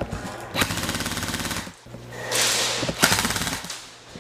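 Airsoft electric rifle firing two full-auto bursts of rapid clicking shots: the first about half a second in, lasting about a second, and the second about three seconds in.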